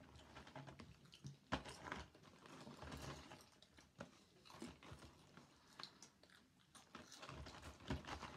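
Faint, irregular crunching of people chewing popcorn, with the small rustle of hands dipping into paper popcorn boxes.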